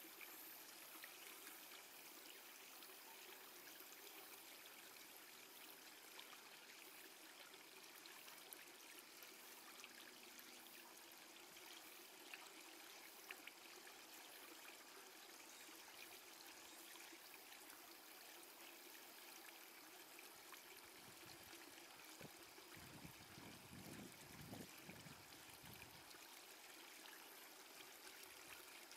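Near silence: a faint, steady hiss, with a few soft low rumbles about three-quarters of the way through.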